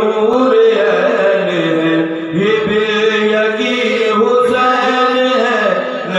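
Male voice chanting a devotional Urdu noha in praise of Hussain into a microphone, in long, held melodic phrases.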